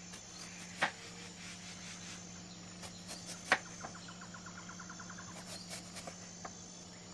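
Knife slicing a crisp apple into thin slices on a wooden cutting board: a few sharp taps of the blade on the board, the loudest about three and a half seconds in, and a short crackle of the blade going through the flesh, over a steady low hum.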